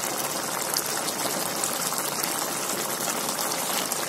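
Chicken pieces simmering in their own juices in a metal cooking pot, a steady hiss.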